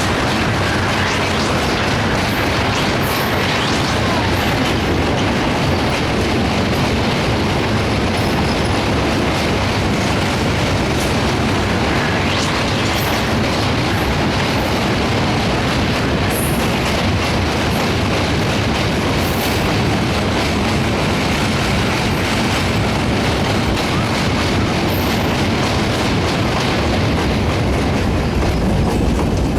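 Passenger train running at speed, its wheels clattering over the rail joints in a steady rumble as the carriages go by.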